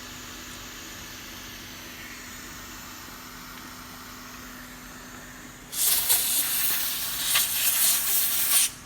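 A steady low hiss, then about three seconds of loud rushing air hiss from a jet of air, which stops abruptly near the end.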